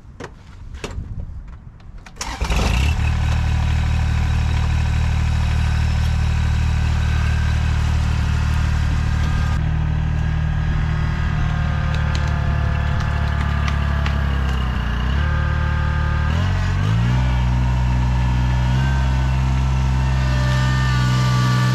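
Kubota tractor's diesel engine comes in loud about two seconds in and runs steadily. Around fifteen seconds in it is throttled up, its pitch rising and then holding higher, as it strains to pull a chained log that is stuck fast against a piece of wood.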